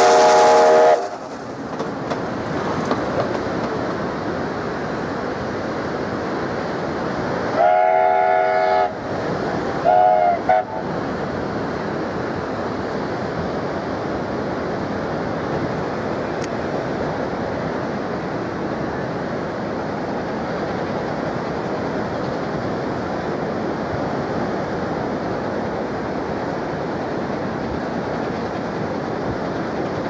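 Steam locomotive Kerr Stuart 4185's whistle: one blast cuts off about a second in, then a longer blast comes about eight seconds in and a short one about ten seconds in, over steady noise.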